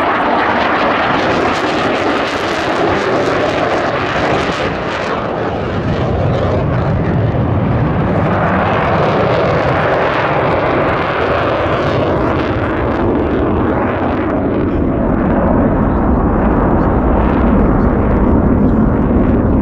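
Jet noise from a Swiss Air Force F/A-18 Hornet flying low through the valley: a continuous loud roar with a hissing edge at first, turning into a deeper rumble that grows a little louder near the end as jets go on passing overhead.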